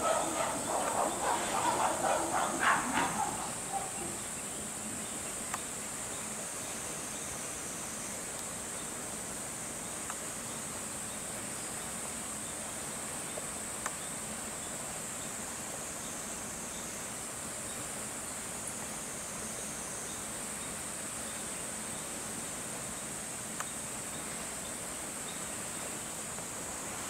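Steady, high-pitched drone of a summer insect chorus. In the first three seconds some animal calls sound over it.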